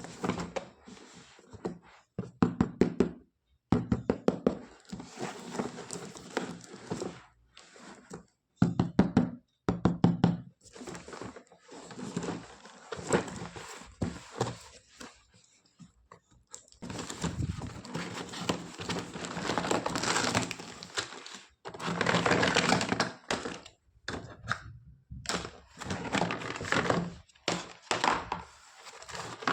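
Toys being handled: repeated knocks and thunks of pieces set down and bumped together, with longer stretches of rustling and clatter in the second half.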